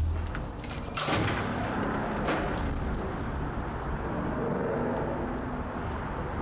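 A glass entrance door is pushed open about a second in with a few knocks and clicks. Steady outdoor noise with distant road traffic then floods in and holds.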